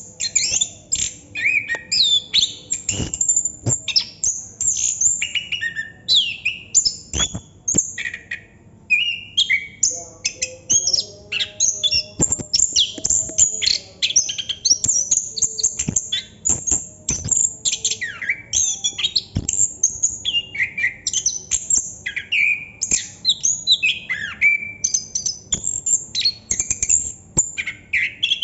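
Chestnut-capped thrush (anis kembang) singing non-stop: a long, unbroken song of quick, varied chirps, whistled glides and trills.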